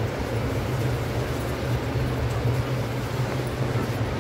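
A steady low drone, with faint light scraping of a wooden spatula stirring rice in a non-stick pan.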